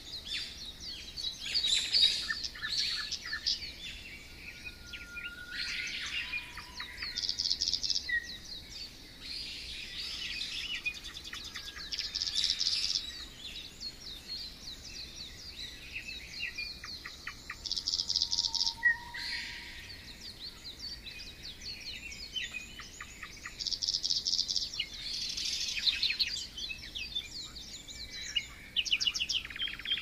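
Several songbirds singing and chirping: quick trilled phrases of repeated notes follow one another every few seconds, with a few short clear whistles in between.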